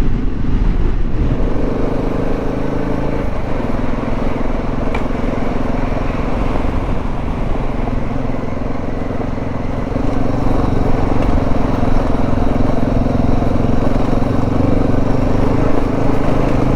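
Dual-sport motorcycle engine running steadily under way, its note shifting a couple of seconds in and getting louder about ten seconds in.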